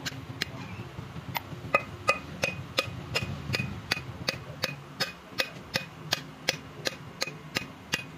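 Metal hammer blows on the valves of a diesel cylinder head, about three sharp ringing taps a second, knocking the rusted valves loose from their seats.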